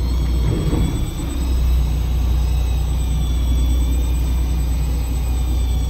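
Fishing boat's engine running with a steady low drone, with a faint thin whine above it.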